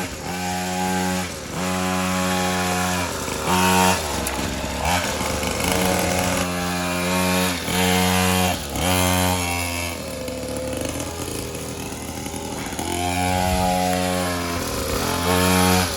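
Small single-cylinder engine of a mini moto revving hard, the revs held for a second or two and then dropping off and picking up again, over and over.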